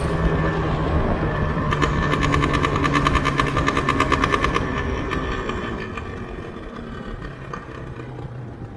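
Yamaha RZV500R's two-stroke V4 engine running as the motorcycle is ridden, with a rapid, even pulsing over the engine note from about two to four and a half seconds in, then fading away.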